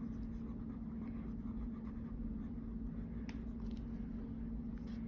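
Crayon scribbling on paper, colouring in a small area (the kitten's eyes), over a steady low electrical hum, with two faint ticks near the end.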